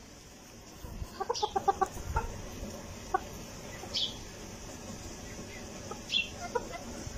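Cochin bantam chickens clucking while they feed: a quick run of short clucks about a second in, then scattered single clucks and a few short high-pitched calls.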